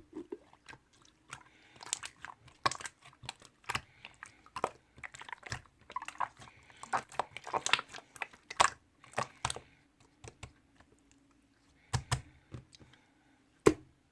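Slime being squished and pressed by hand, making irregular clicks and pops with a short lull about two thirds of the way through.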